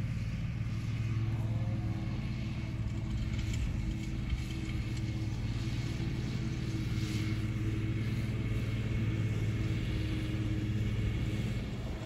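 Steady low hum of an SUV's engine with road and tyre noise, heard from inside the moving vehicle.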